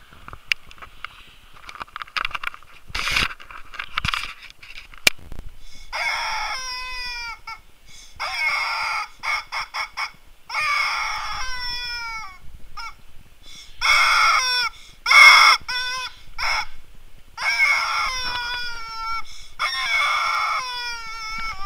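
Loud bird calls, starting about six seconds in: a series of harsh calls, each about a second long and made of several notes falling in pitch, repeated every two seconds or so, with a few faint knocks before them.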